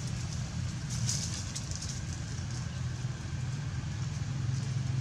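A steady low engine-like hum runs throughout, with a brief stretch of rustling about a second in.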